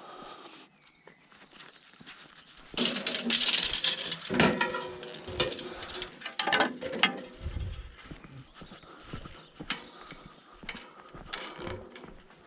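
Scrap metal pieces clattering and rattling as they are handled and loaded, starting about three seconds in and loudest for a few seconds, then tailing off into lighter scattered knocks.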